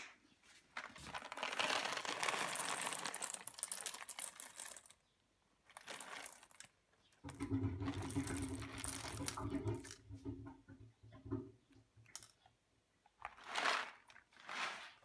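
Whole coffee beans poured from a paper bag into the bean hopper of a De'Longhi bean-to-cup espresso machine: the bag crinkles and the beans rattle and hiss as they fall, loudest in the first few seconds. A low machine hum runs for about three seconds midway, and two short rustles come near the end.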